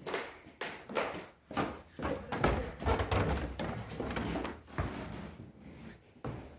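Footsteps on a narrow wooden staircase: a string of irregular knocks and thumps, roughly two a second.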